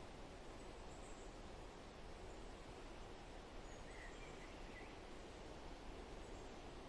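Faint, steady outdoor background noise, with a few soft bird chirps about four seconds in.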